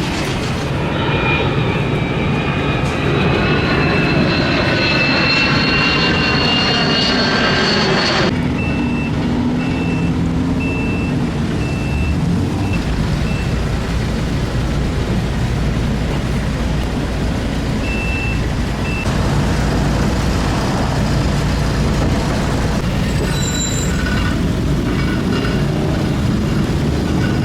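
Heavy street traffic and construction vehicles. A vehicle pulls away with a rising whine for the first several seconds, which stops abruptly. Then a reversing alarm beeps roughly once a second for several seconds and briefly again later, over a steady low engine rumble.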